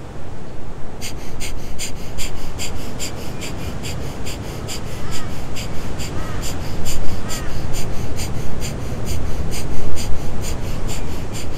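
Breath of fire, a Kundalini pranayama: rapid, forceful exhalations through the nose, each a short sharp puff of air driven by pumping the navel in, in a quick, even rhythm that starts about a second in.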